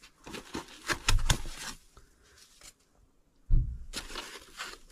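Hands handling packaging in a cardboard box: light clicks, taps and rustles of a foam sheet and the box, then a soft thump about three and a half seconds in, followed by rustling as the monitor is handled in its foam insert.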